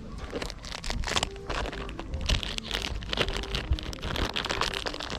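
Dry twigs and firewood crackling and snapping in dense, irregular sharp cracks.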